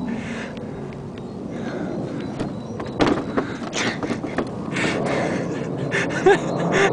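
A person climbing over a wooden garden fence: a string of short knocks and thumps against the fence panels, starting about three seconds in.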